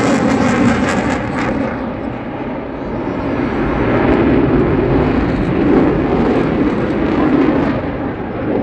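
Eurofighter Typhoon fighter jet's twin EJ200 turbofan engines, a loud rushing jet noise that dips about two seconds in and swells again.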